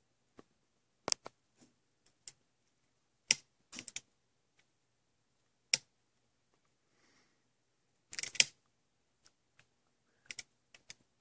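Scattered sharp clicks and light taps, about a dozen spread irregularly with a cluster about eight seconds in, over a faint low hum.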